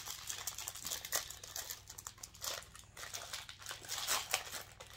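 Plastic snack packet crinkling as it is handled and pulled open: an irregular rustling crackle, loudest a little after four seconds in.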